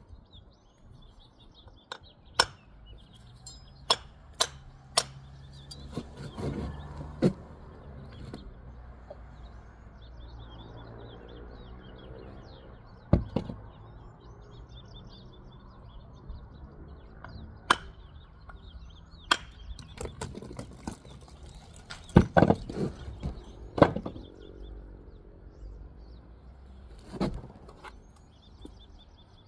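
Bricklaying by hand: sharp, irregular taps and clicks of a steel trowel on brick, with short stretches of mortar being scraped and spread. Birds chirp steadily in the background.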